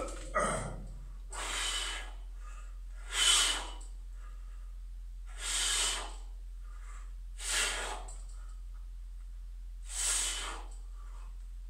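A man breathing out hard in six sharp, noisy breaths spaced a second or two apart, from the effort of pull-ups on a bar.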